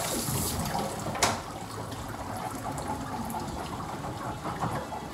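Hand-held grooming-tub sprayer running steadily, spraying water onto a dog's wet coat, with one sharp knock about a second in.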